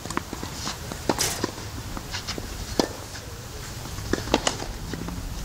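Tennis play on a clay court: sharp knocks of the ball off rackets and court, the loudest roughly every second and a half, among lighter footstep scuffs.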